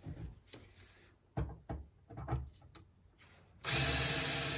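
Cordless drill starting up near the end and running steadily, working into the car's trunk sheet metal to fix a part with screws. Before it come a few light knocks of parts being handled.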